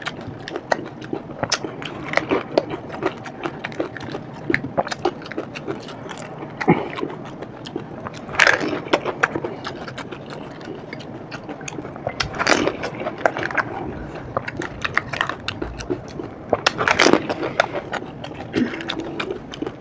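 Pani puri being eaten close to the microphone: hollow fried puris cracked and crunched, with wet chewing. There is a steady run of small sharp crackles and a few louder crunches, about a third, three-fifths and four-fifths of the way through.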